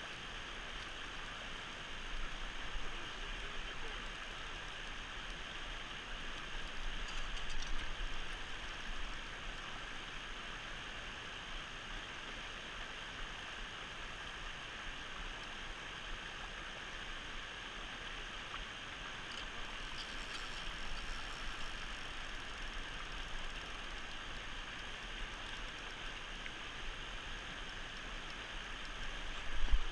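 Steady rushing of flowing river water, with a couple of slightly louder swells.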